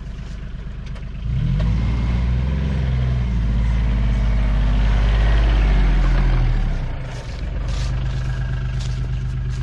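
A farm vehicle's engine pulling away: it speeds up about a second in, runs hard for several seconds, then eases back near seven seconds to a steady run.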